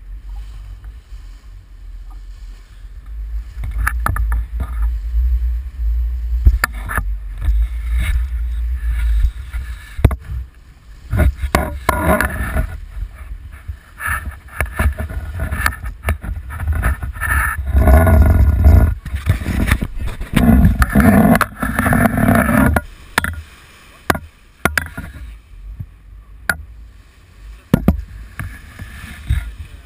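Wind buffeting the microphone and water rushing past the hull of a sailboat under sail on the open ocean, coming in loud gusts through the middle, with scattered sharp knocks and rattles from the rig.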